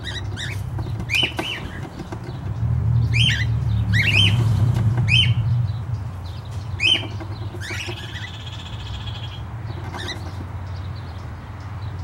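Cockatiels giving short chirps about once a second, with one longer call about eight seconds in. A low rumble runs underneath and is loudest between about three and five seconds.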